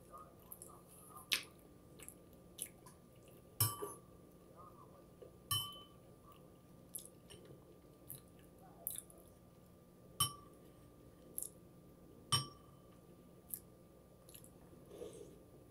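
Close-up eating sounds: chewing, with irregular sharp clicks and clinks of a metal spoon against the soup container, a few of them ringing briefly.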